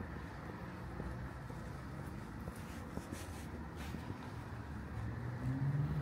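Road traffic: a steady rumble of passing cars, with an engine hum growing louder near the end as a vehicle approaches.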